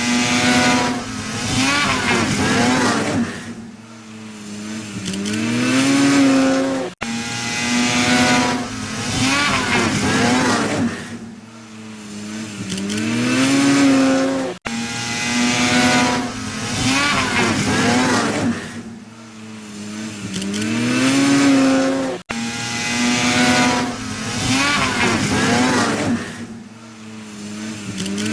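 Snowmobile engine revving, loud surges whose pitch falls away, going quieter, then climbing again. The same stretch of about seven and a half seconds repeats four times, with a brief dropout at each joint.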